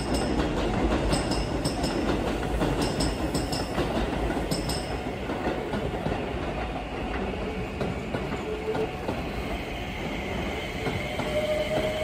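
Keio Line electric commuter train pulling slowly into the station past the platform, its wheels clattering over the rails. A faint whining tone comes in during the second half as it slows.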